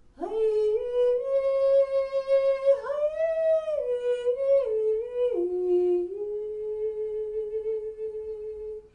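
A woman's wordless singing, one melodic phrase: it scoops up into a held note, moves through a few sustained pitches with small slides between them, then settles on a long held lower note for the last three seconds or so.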